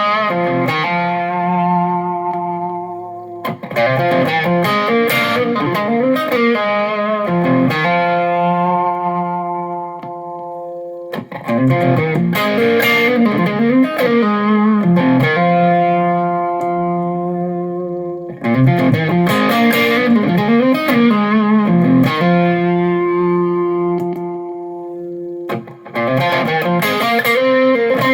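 Electric guitar played through a germanium-transistor range-finder boost pedal, with a light overdrive. It plays phrases of quick notes, each ending on a held chord that rings out and fades before the next phrase starts.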